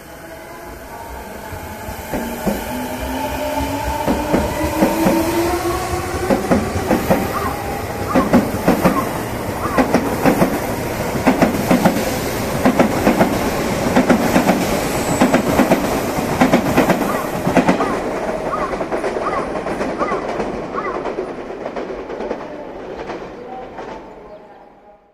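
Odakyu electric commuter train pulling out and accelerating away. Its motor whine rises steadily in pitch over the first several seconds, then the wheels clatter over rail joints and points in a quickening rhythm that grows louder and then fades as the train recedes.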